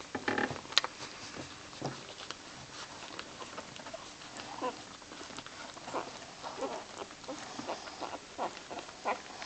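Newborn Boxer puppies squeaking and whimpering in short, high, wavering calls, many of them one after another in the second half, with a sharp click a little under a second in.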